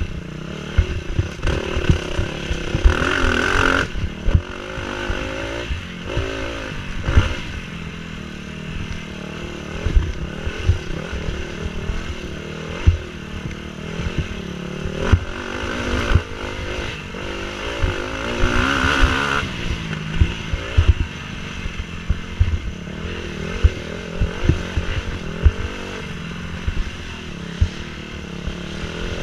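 Dirt bike engine revving and easing off over a rough woods trail, heard from the rider's helmet, with surges of throttle about three seconds in and again near the twenty-second mark. Frequent low thumps and rattles run under the engine.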